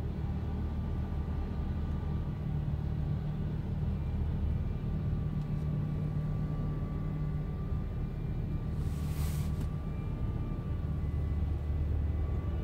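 Heavy wheel loader with a front-mounted snowblower attachment running and throwing snow, a steady low rumble with a faint steady whine on top. A brief hiss cuts in about nine seconds in.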